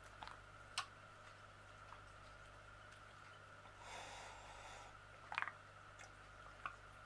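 Quiet handling of picture-frame parts: a few light clicks and taps, a quick cluster of them about five seconds in, and a short rustle about four seconds in, over a faint steady hum.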